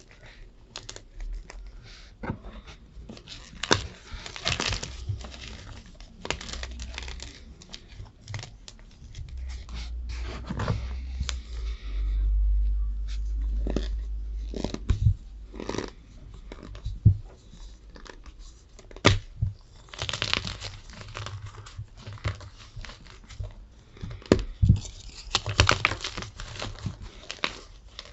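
Gym chalk crushed and crumbled by hand close to the microphone: irregular dry crunches and crackles. A low rumble rises and fades about halfway through.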